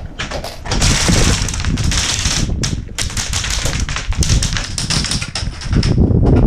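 Airsoft guns firing: rapid, uneven clicks and pops over a steady rustle and low rumble.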